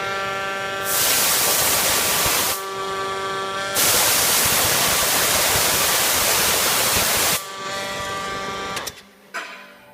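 Hydrovane 23 rotary vane air compressor running with a steady, even-pitched hum. It is joined twice by long, loud rushes of compressed air, about a second in and again for over three seconds from about four seconds in. The machine drops away shortly before the end, now that its pressure regulation works again.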